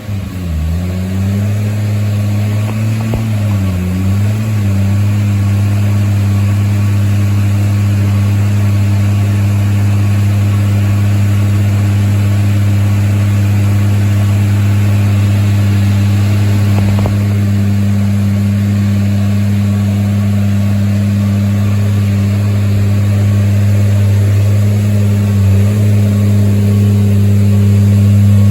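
Turbocharged Toyota 2JZ-GE VVT-i inline-six running on a hub dyno. The revs waver up and down for the first few seconds, then hold steady at one speed, dip briefly near the end and rise slightly.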